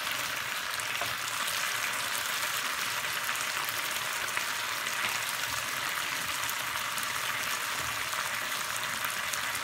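Chicken breast fillets frying in a nonstick pan: a steady sizzle with small crackles as the water released by the meat cooks off.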